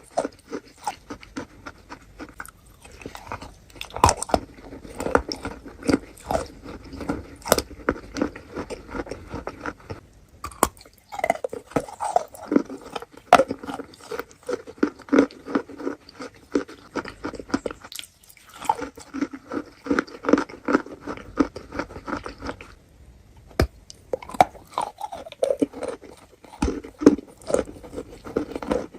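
Close-up chewing and crunching of wet chalk with clay paste: dense, crackly crunches from bite after bite, broken by three brief pauses.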